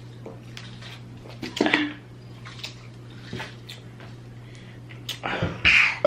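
A loud burp starting near the end, after a shorter mouth sound about a second and a half in, over a steady low hum.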